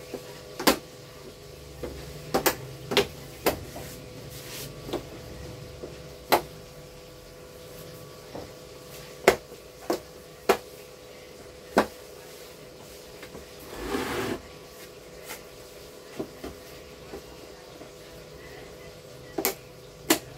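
Scattered sharp clicks and knocks of plastic TV parts being handled and fitted during reassembly, with a brief scraping rustle about fourteen seconds in, over a faint steady hum.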